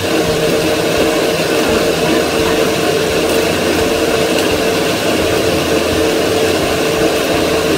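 Electric countertop blender running steadily, blending avocado shake, its motor giving an even, unchanging tone.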